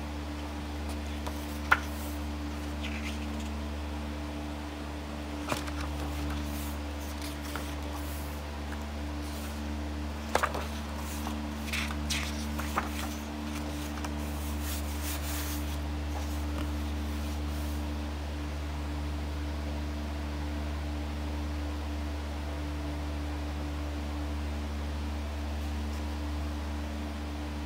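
Pages of a Stillman & Birn Gamma Series sketchbook being turned and handled: a few sharp clicks and brief paper rustles, mostly in the first half, over a steady low hum.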